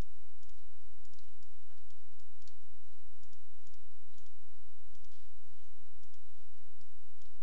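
Computer mouse buttons clicking at irregular intervals while edges are selected in 3D software. Under the clicks runs a steady low electrical hum.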